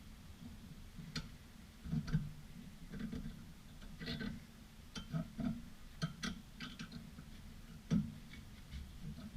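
Irregular metallic clicks and taps of hand tools on front brake parts during brake reassembly, about a dozen separate knocks with no steady rhythm.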